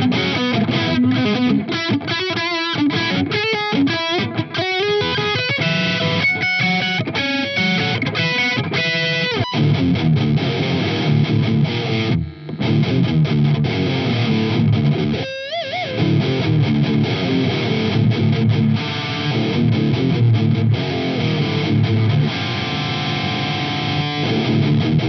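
Bacchus Universe Series electric guitar on its bridge pickup with a crunch overdrive tone, playing single-note lead lines. After a short break about twelve seconds in it switches to a high-gain distorted tone for heavier riffing with a bent note.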